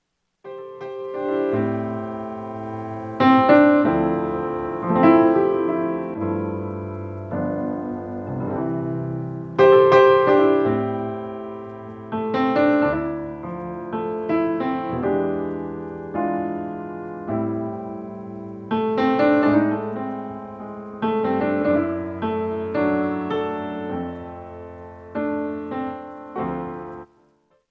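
Solo piano music, with chords and melody notes struck and left to fade. It stops abruptly near the end.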